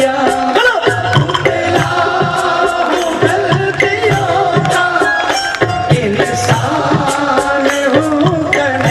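Instrumental interlude of a live Hindi devotional bhajan band: a melody line with hand-drum rhythm underneath, played at a steady beat.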